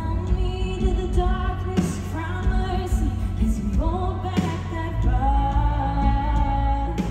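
Contemporary worship band playing live with a lead singer, over a steady heavy bass.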